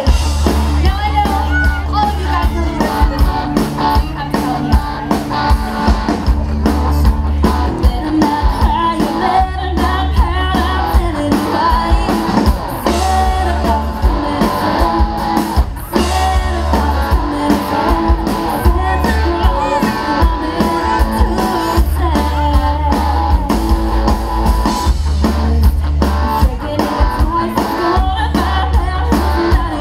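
A live rock band playing a song: electric guitar and drums with a singer at a microphone, a steady beat throughout.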